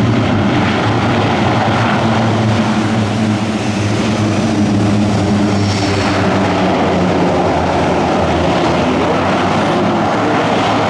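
Airbus A400M Atlas's four Europrop TP400-D6 turboprop engines running loud: a steady propeller drone with several held low tones over a broad rushing noise.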